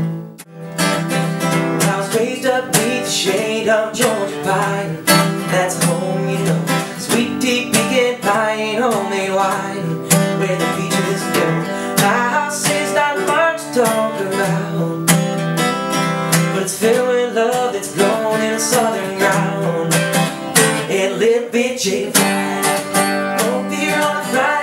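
Acoustic guitar strumming with a wavering melody line over it, after a short break just after the start.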